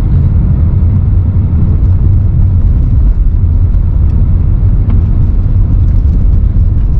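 Car driving along, a loud, steady low rumble of road and engine noise.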